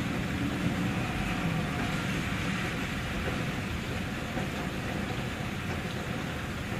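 Steady rain falling, an even rushing noise with a low rumble underneath.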